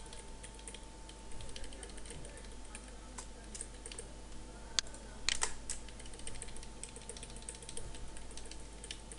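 Computer keyboard keys tapped irregularly: the Ctrl+V and Shift+arrow presses of pasting shapes and nudging them into place. Two louder key strikes come about five seconds in. A faint steady electrical hum runs underneath.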